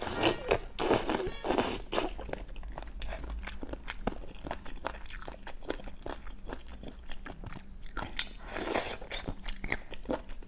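Close-miked biting and chewing of spicy boneless chicken feet, with wet, crunchy clicks. The bites are loudest in the first two seconds and again a little after eight seconds.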